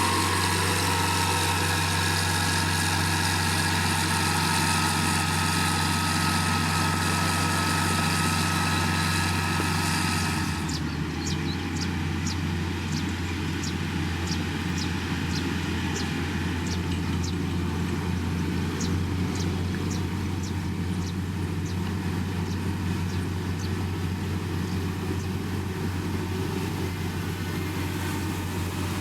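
Diesel engine of heavy road-building machinery running steadily. About ten seconds in the sound changes abruptly: it drops a little in level and scattered short high clicks appear.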